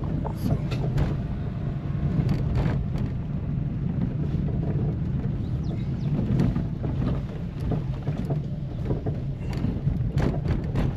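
A vehicle running steadily on the move, a constant low rumble with wind buffeting the microphone and occasional knocks.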